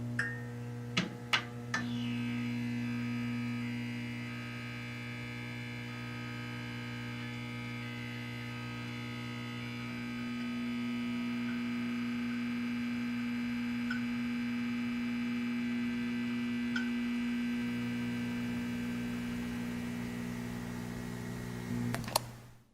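Electric pet nail grinder running with a steady hum, a few clicks in the first couple of seconds, then cuts off just before the end.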